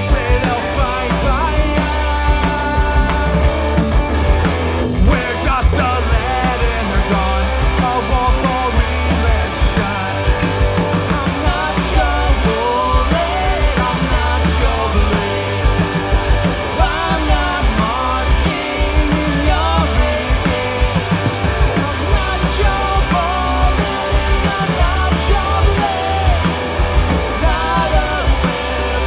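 Live punk rock band playing: electric guitars, bass guitar and a drum kit, with a lead singer at the microphone. The playing is loud and steady.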